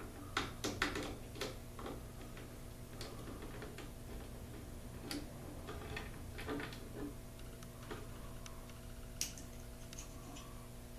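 Scattered small clicks and taps of a screwdriver working machine screws out of a garage door opener's cover, quickest in the first second or so and sparse after that, over a steady low hum.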